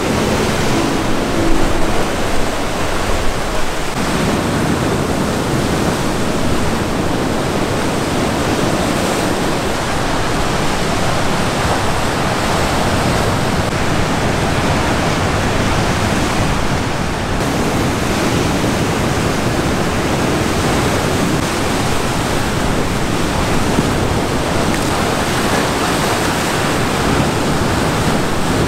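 Rough sea surf breaking over rocks along the shore, a continuous rush of white water with no let-up.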